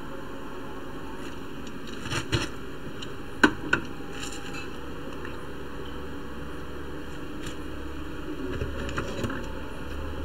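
Steady background hiss and hum, with a few light clicks of small hand tools on a circuit board, in pairs about two seconds and three and a half seconds in. A low rumble comes up near the end.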